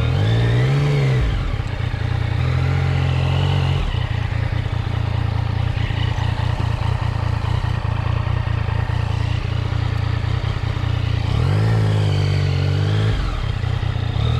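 Yamaha MT-09's inline three-cylinder engine running on the move. It revs up and drops back about a second in and again near the end, with a steady cruising note in between.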